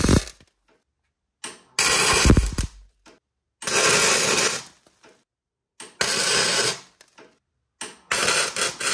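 MIG welder arc crackling in about four short bursts of roughly a second each, separated by silent gaps: tack welds on a steel angle-iron mount bracket.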